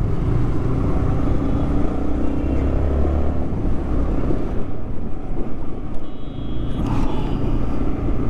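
Yamaha R15 V3 motorcycle running on the road: a steady engine and road rumble. A short faint high whine comes in about six seconds in.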